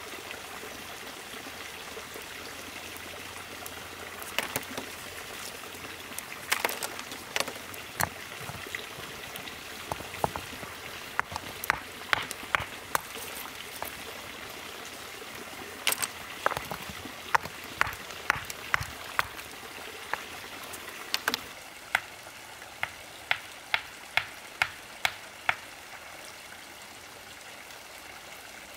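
Stone knocking on stone as lumps of iron ore are broken up on a flat stone anvil: sharp, irregular knocks, then near the end a run of evenly spaced strikes about two a second, over a steady background hiss.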